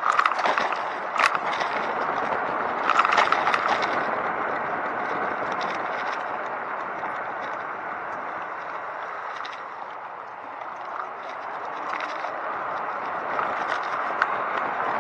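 Steady rushing road noise of a recumbent cycle being ridden, with scattered crackles and scrapes that are thickest in the first four seconds. The noise eases off around ten seconds in, then picks up again.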